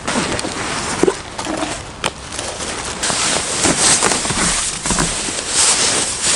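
Fabric backpack and padded winter clothes rustling and crackling as they are rummaged through and pulled out by hand, with scattered sharp clicks. The rustling gets louder and brighter about three seconds in.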